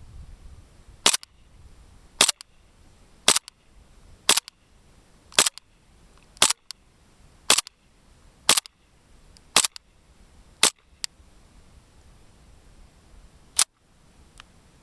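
Western Arms Colt M1911A1 gas blowback airsoft pistol firing ten sharp shots about one a second, each a crack of gas and the slide cycling, then one more sharp click near the end.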